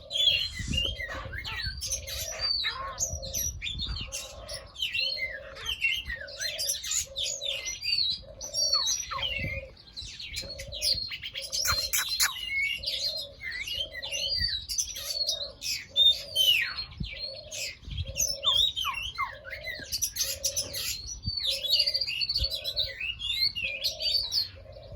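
A flock of small aviary birds chirping and twittering over one another without pause, with a low short note repeating evenly a little faster than once a second underneath.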